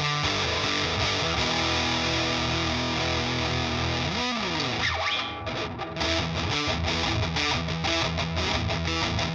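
Electric guitar played through a Frank the Anvil FX Kitsune fuzz, a modified Big Muff, with its mid switch in the centre, mid-cut position: a thin, heavily fuzzed tone. Held distorted chords, a pitch slide about four seconds in, then fast choppy chords.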